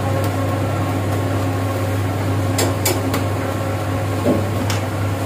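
Steady, loud mechanical hum of a motor or fan, with a few sharp clicks of a kitchen knife on a steel counter around the middle and near the end.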